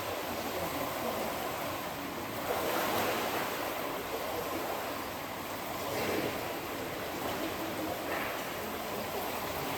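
Swimming-pool water splashing and churning in a steady wash, swelling a few times, at about two and a half, six and eight seconds in.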